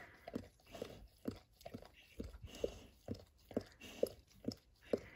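Faint, soft rhythmic mouth sounds from a Dalmatian and her ten-day-old puppies, about two a second.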